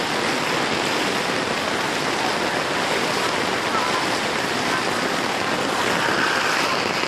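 Steady rush of water: rain falling on a flooded street and floodwater flowing along it, even throughout.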